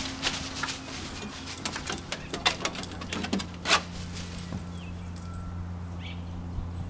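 Footsteps and knocks on a wooden deck and stairs: a quick run of sharp clicks for the first few seconds that then stops, over a steady low hum.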